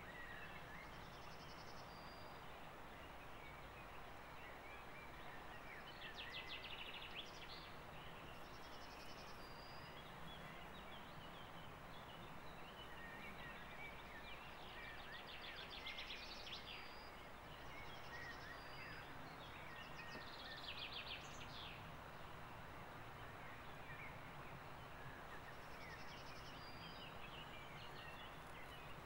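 Faint outdoor ambience: a steady rush of river water, with birds calling now and then in short high whistles and a few quick trills.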